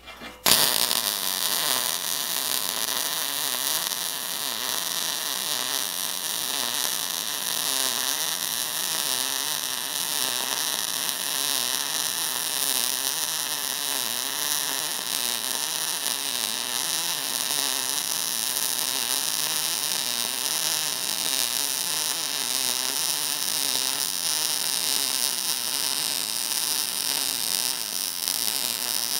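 Wire-feed welding arc on steel square tubing, a steady crackling hiss that strikes up about half a second in and runs on evenly as one long bead is laid.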